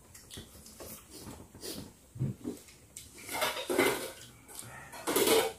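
People eating a meal of rice and curries by hand and with spoons, with small soft clinks and mouth noises. Two short, louder noises come in the second half.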